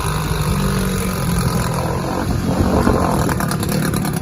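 Jetski engine mounted as a short-tail boat motor, running steadily at a loud, even pitch.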